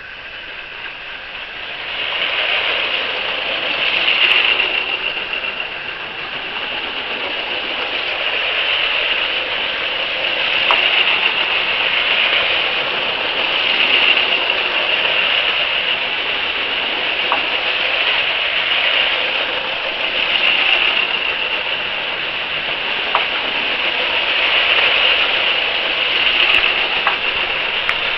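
Lego City 60051 high-speed passenger trains running on plastic track: the whirr of their small electric train motors and the rattle of wheels, swelling and fading every few seconds as the trains pass close by, with a few faint clicks.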